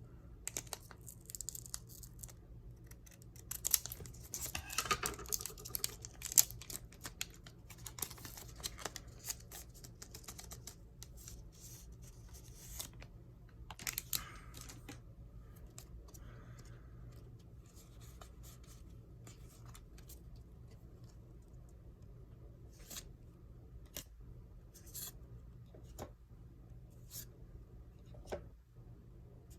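A foil trading-card booster pack being opened and its cards handled: dense rustling, tearing and small clicks for about the first half, then sparser single clicks as cards are flipped one by one.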